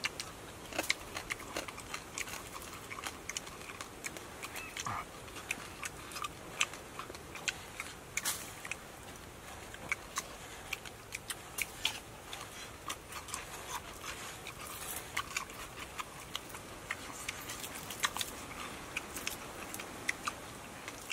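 People eating fish with their hands: irregular small clicks and smacks of chewing and picking at the fish, over a steady faint hiss.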